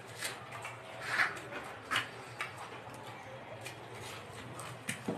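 Close-up chewing with irregular crisp crunches as raw food is bitten and chewed in the mouth, the loudest crunch a little over a second in.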